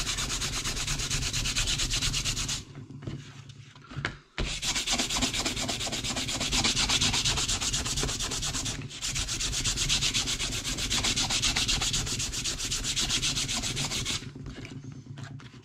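240-grit Abranet mesh abrasive rubbed quickly back and forth over a sheet of birch bark, sanding off the fine curls to smooth its surface. The rubbing pauses for about a second and a half near the three-second mark, breaks off briefly near the middle, and stops shortly before the end.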